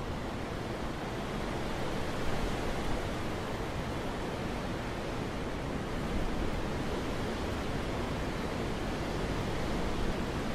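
Steady wind ambience: a constant, even rushing noise with no distinct gusts or other events.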